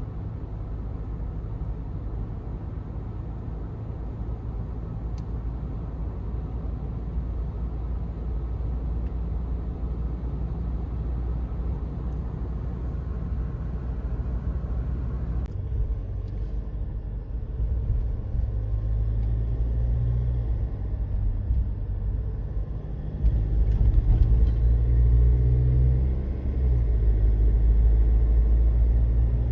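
A car driving, with steady low road and engine rumble that grows louder about two-thirds of the way through.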